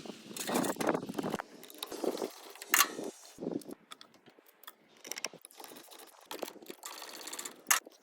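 Irregular mechanical clicks, rattles and scrapes, with a sharp knock about three seconds in and another near the end.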